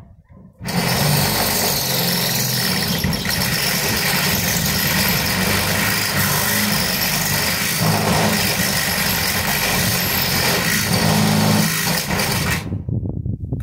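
A power tool running steadily for about twelve seconds, switched on about a second in and cut off abruptly near the end.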